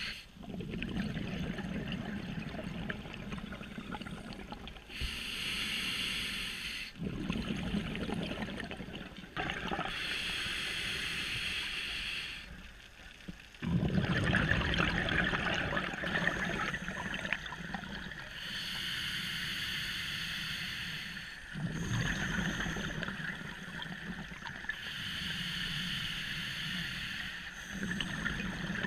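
Scuba diver breathing through a regulator underwater. A hissing inhale alternates with a bubbling rush of exhaled air, about four breaths, and the exhale about fourteen seconds in is the loudest.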